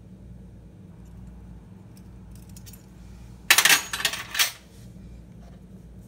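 A spice shaker jar of ground cinnamon shaken over cut sweet potatoes: a brief rattling shake about three and a half seconds in, then a second shorter one, over a steady low hum.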